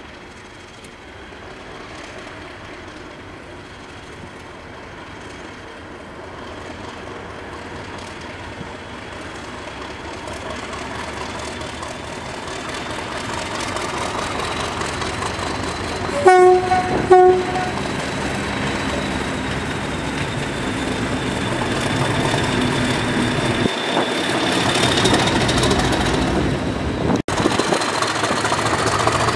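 Class 50 diesel locomotive's English Electric 16CSVT V16 engine working, growing steadily louder as it approaches, with a high whine above it. About halfway through, its horn gives two short blasts.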